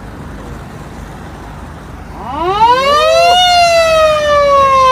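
A siren winds up in pitch about two seconds in, then holds loud and slides slowly downward. It follows a low, steady background rumble.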